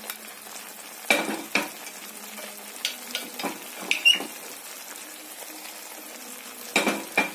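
Onion-garlic-ginger paste and spice powders sizzling in hot oil in a kadhai, with a steady hiss and about ten sharp knocks and scrapes of utensils against the pan as the spices are tipped in and stirred.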